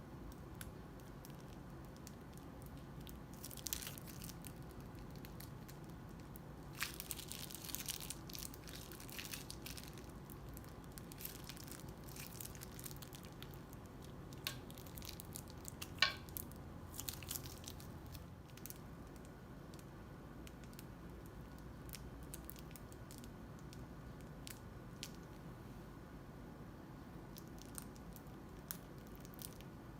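Crunchy slime being squished and worked by hand, giving scattered crackles and clicks in irregular bursts, busiest in the first half and sparser toward the end.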